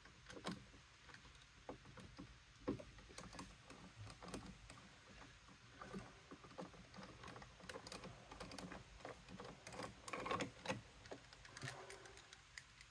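Faint, scattered light clicks and scrapes of hand-tool work on a GM truck's wiper motor: a screwdriver turning out the cover's Torx screws and fingers handling the plastic harness connector, busiest around ten seconds in.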